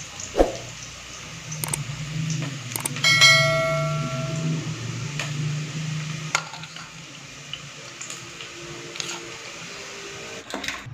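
Metal spoon tossing cooked noodles in a stainless steel colander bowl: soft scraping and scattered clicks, with one ringing clang of the spoon against the steel about three seconds in.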